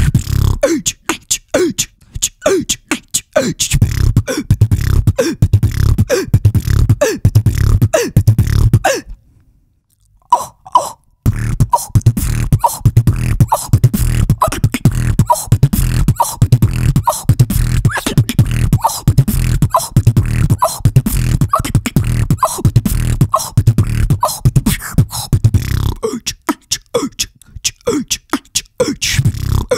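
A woman beatboxing a trap-style beat into a handheld microphone: fast vocal clicks and hi-hat-like hits over a deep, sustained vocal bass. The beat stops for about a second around nine seconds in, then comes back full, and near the end the bass drops out, leaving sparser hits with falling pitch swoops.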